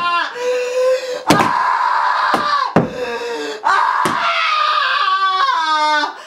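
A woman screaming in long, wavering cries while she strikes a mattress again and again, with several sharp thwacks of the blows landing.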